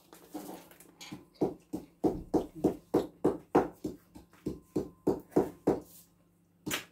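A quick, even run of short percussive beats, about three to four a second, starting about a second in and stopping shortly before the end.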